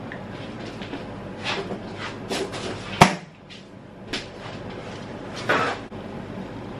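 Kitchen handling clatter: a few light knocks and scuffs over a low steady hum, with one sharp loud knock about three seconds in, like a cupboard door or container being shut, and a brief scraping rattle near the end as a wooden spoon stirs the cream sauce in the pan.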